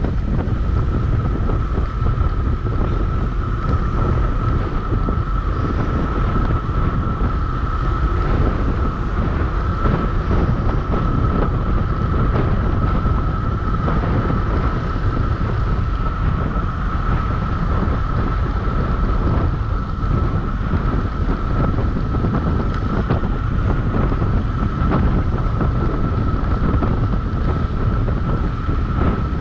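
Wind buffeting the microphone during a fast downhill ride: a loud, steady low rumble that does not let up, with a thin high whine running steadily underneath.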